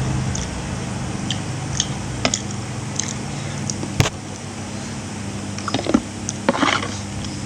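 Close-up eating sounds: a person chewing and biting food, with scattered short clicks and smacks, the sharpest about four seconds in and a small flurry around six to seven seconds. A steady low hum runs underneath.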